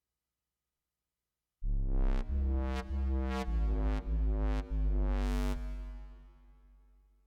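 Electronic music from a hardware synthesizer: a deep synth bass phrase of about six notes, each struck with a bright noisy hit, starting about a second and a half in, then fading out over the last two seconds.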